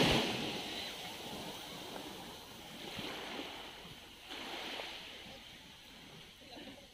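Sea water washing and lapping in soft swells, one about three seconds in and another just after four seconds, each fading away.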